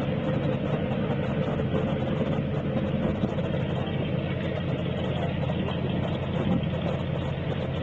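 Motorboat engine running steadily as the boat cruises slowly along the canal: an even, low engine rumble that holds throughout.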